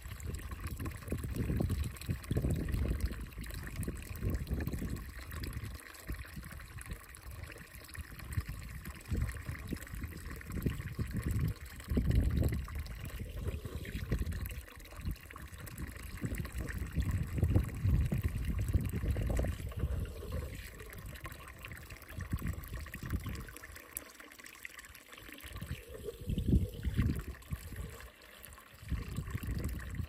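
Water running and trickling steadily from a natural spring fountain, under a low rumble that rises and falls and drops out briefly a few times.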